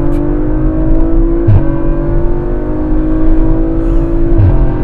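Audi RS4 B9's 2.9-litre twin-turbo V6, tuned to Stage 2 with catalysts removed by downpipes, accelerating hard under a full-throttle kickdown, heard from inside the cabin. The engine note climbs steadily and is broken twice by quick upshifts, about a second and a half in and near the end, each marked by a short, dry crack.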